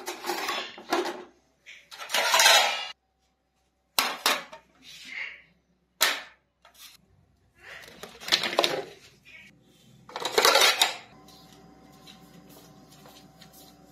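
Kitchen utensils and dishes clattering in several short sharp bursts as a utensil is pulled from a metal wire dish rack and plastic dishes are handled by the steel sink. About eleven seconds in the clatter gives way to a steady low hum.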